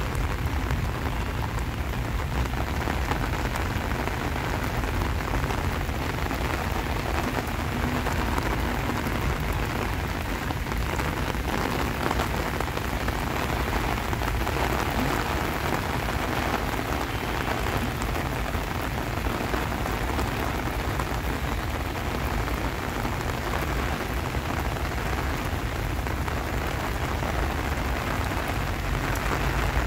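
Steady rain falling, a constant hiss of drops with a low rumble underneath.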